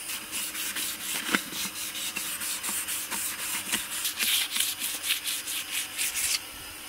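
Sandpaper rubbed by hand over a painted steel wheel rim, scuffing the old paint to prepare it for repainting: quick back-and-forth scratching strokes that stop abruptly near the end.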